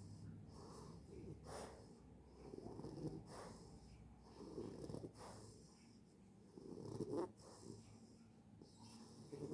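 English bulldog snoring in its sleep, a snore with each breath about every two seconds.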